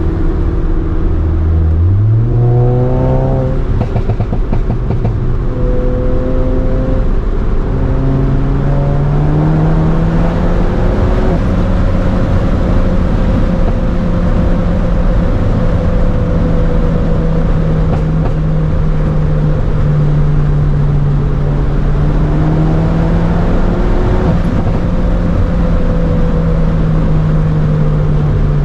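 VW MK7 GTI's turbocharged 2.0-litre four-cylinder engine under way: about two seconds in it accelerates hard, its pitch climbing steeply, then rises again more gently over the next several seconds before holding steady at cruising speed.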